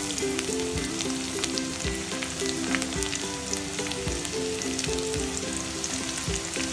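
Garlic cloves sizzling in hot mustard oil with mustard seeds and curry leaves, a steady frying hiss dotted with many small crackles and pops. A repeating low tune with a soft thump about once a second runs underneath.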